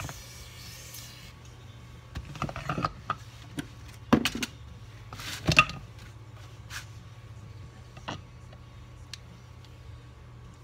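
An aerosol spray can hisses into a Norton Commando gearbox housing for about the first second. Then come scattered clinks and knocks of metal gearbox parts being handled and set down, the sharpest about four and five and a half seconds in, over a steady low hum.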